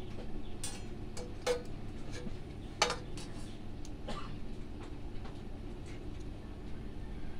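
Small metal parts and tools being handled, giving scattered light clicks and clinks over a steady low hum. Two sharper clinks, about one and a half and three seconds in, ring briefly.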